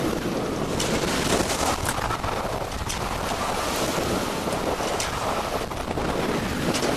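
Wind buffeting the microphone over the steady rush of waves against the hull of a Maxi 95 sailboat under sail in choppy water.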